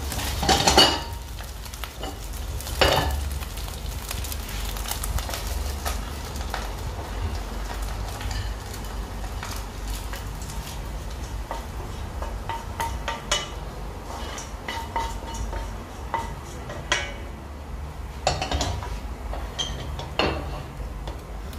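Food sizzling in a pot as it is stirred, a utensil scraping and clinking against the pot several times, over a steady low hum.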